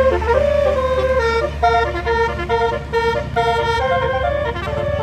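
A basuri musical vehicle horn playing a tune of short stepped notes, one after another, with a steady low rumble underneath.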